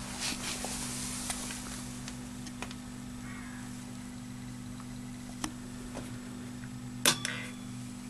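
Washing machine with a homemade relay controller: a steady low electrical hum with a few light clicks, and a sharp double click about seven seconds in, as a relay switches at the start of the wash program.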